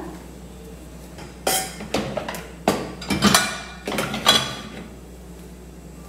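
A metal saucepan and a plastic bowl being set into a dishwasher's lower wire rack: a run of clattering knocks and clinks, with a little metallic ringing, between about one and a half and four and a half seconds in.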